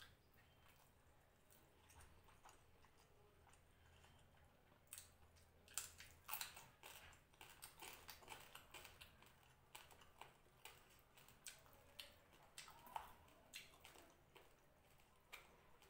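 Faint eating sounds: chewing with small wet mouth clicks, several a second, starting about five seconds in and thinning out near the end.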